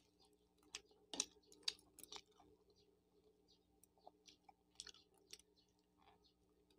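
Faint chewing of a shawarma wrap: soft, scattered mouth clicks and smacks, a handful of them spread over several seconds.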